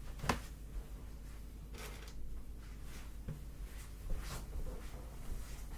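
A few scattered clicks and rustles of objects being handled.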